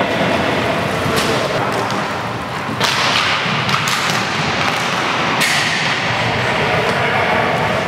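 Inline hockey play on a wooden sports-hall floor: a steady rush of skate wheels rolling, with sharp cracks and thumps of sticks, puck and bodies, the loudest about three seconds in and another about five and a half seconds in, echoing in the large hall.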